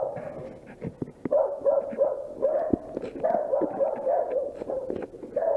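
Dogs barking over and over, about three barks a second.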